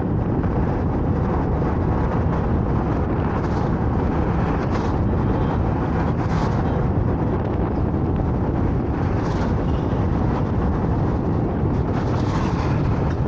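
Steady road noise of a car driving: low tyre and engine rumble with wind, and several brief whooshes spread through.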